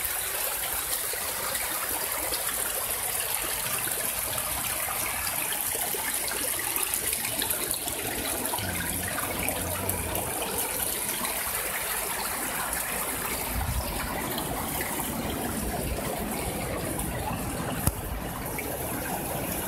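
Steady rush of running water among rocks: a small river flowing out from a rock crevice. A single brief knock comes near the end.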